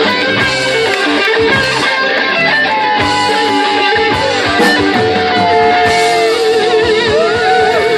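Live rock band playing an instrumental passage led by electric guitar, with held notes that bend in pitch. In the second half one long note wavers with a wide vibrato.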